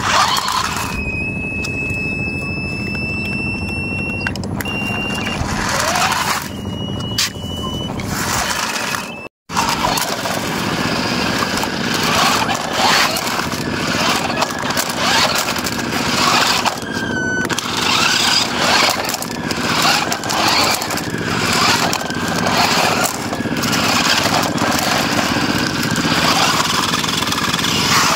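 Small electric motors and plastic gearboxes of two chained toy remote-control cars whining and grinding as they strain against each other. A high, steady whine in the first few seconds gives way, after a brief dropout about nine seconds in, to a busier rattling whine.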